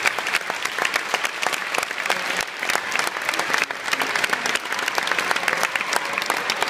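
Large audience applauding, a dense, continuous clapping of many hands.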